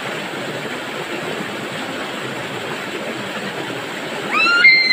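Fast-flowing river water rushing steadily. Near the end a girl lets out a high shriek that rises sharply and then holds.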